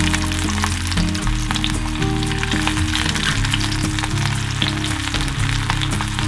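Potato slices sizzling and crackling steadily in hot ghee in a cast-iron skillet as more slices are laid into the pan, with background music underneath.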